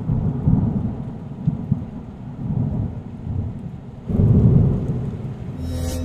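Thunder sound effect: a low rolling rumble that swells up again about four seconds in.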